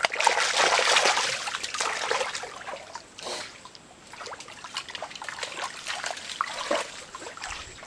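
Creek water splashing and trickling, with many small splashes. It is loudest for the first two seconds or so, then settles to quieter splashing.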